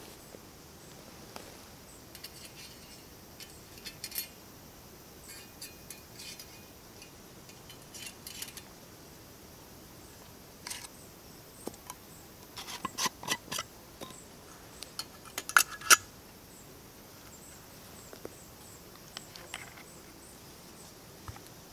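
Small metal clicks and clinks as a brass spirit burner's lids are taken off and the burner is set into a folding steel camp stove. The clinks are scattered and light at first, then come in a denser, louder run about two-thirds of the way in.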